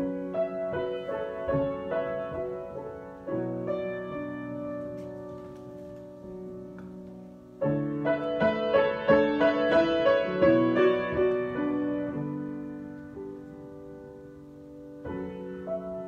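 Grand piano played solo, improvising: phrases of chords and melody that each start with a louder attack and then die away, with fresh phrases beginning about three seconds in, about halfway through and near the end.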